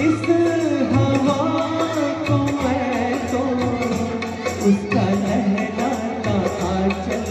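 A man singing a song live into a handheld microphone, amplified through a PA speaker system, over instrumental accompaniment.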